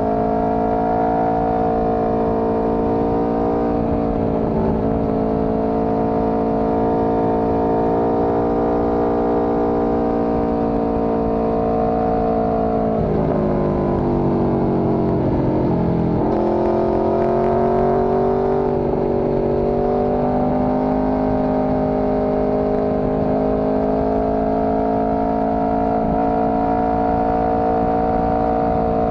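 Four-cylinder motorcycle engine heard from the rider's seat while riding. It holds steady revs, drops in pitch about halfway through as the bike slows, then climbs again as it accelerates, with wind rush underneath.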